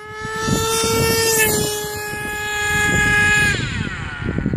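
HPI Savage X 4.6 RC monster truck's 4.6 cc two-stroke nitro engine running at high revs as the truck speeds past, a steady high whine over tyre noise that dips slightly in pitch about a second and a half in. Near the end the revs fall away quickly and the whine drops in pitch.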